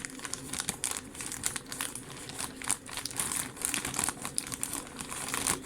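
Plastic packaging being crinkled and crumpled by hand, an irregular run of crackles while a parcel is opened.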